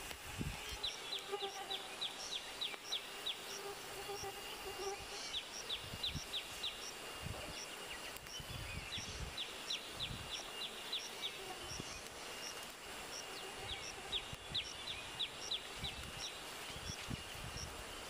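Birds calling in repeated runs of quick downward chirps, with a high peep repeating steadily and a faint insect drone behind. Low rustling and soft thuds come from grass being pulled up by hand.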